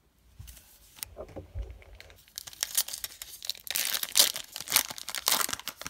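Plastic cellophane wrapper of a trading-card cello pack being torn open and crinkled: a dense crackling rustle from about two seconds in, loudest near the middle. A few soft thumps come before it.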